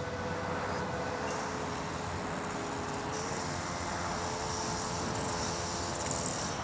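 A damp cloth scrubbing a plastic headlight lens with cleaner, a hissing rub that comes and goes and is strongest in the second half, over a steady background hum.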